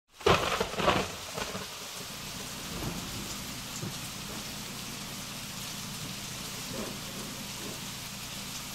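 A loud crack of thunder at the start, rumbling for about a second, then steady rain falling.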